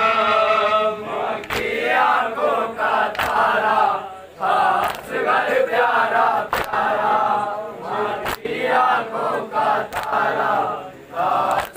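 A group of men chanting a Shia noha lament together, with a sharp slap about once a second keeping the rhythm of matam chest-beating.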